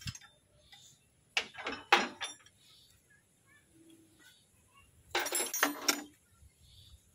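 Metal hand tools clinking: a few sharp clinks about a second and a half in, then a short spell of rattling clinks around five seconds in.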